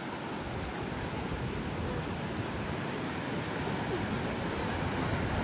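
Ocean surf washing steadily at the beach, with wind on the microphone adding a low rumble that grows a little stronger just after the start.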